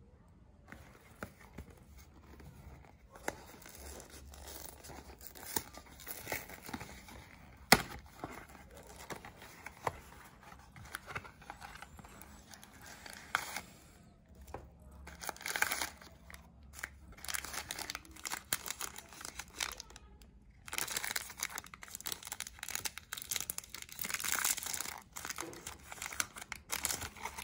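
Cardboard tampon box being opened and handled, irregular rustling with a sharp click about eight seconds in. Over the last six seconds or so, a tampon's orange plastic wrapper is crinkled and torn open.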